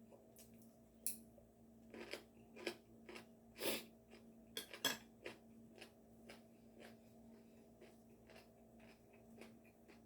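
Tableware and food handling while eating: irregular sharp clicks and short crackles, the loudest about a second in and around four and five seconds in, over a faint steady low hum.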